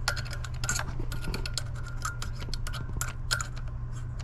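Scraping and quick light clicks on the plastic housing of a Dometic 8740 macerator toilet pump as the last shreds of a jammed baby wipe are cleaned out, over a low steady hum.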